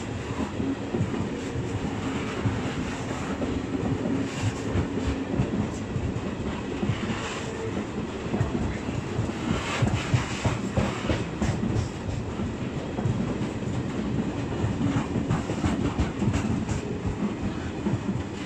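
Freight train of PKP Cargo hopper wagons rolling past close by: a steady rolling rumble packed with the clatter of wheels over the rails, with no break.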